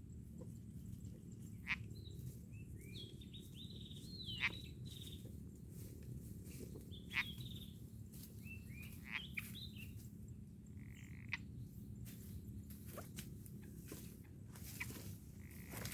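Outdoor animal calls: sharp, short chirps every few seconds, with bursts of quick warbling notes about two to five seconds in and again around seven and nine seconds, over a steady low background rumble.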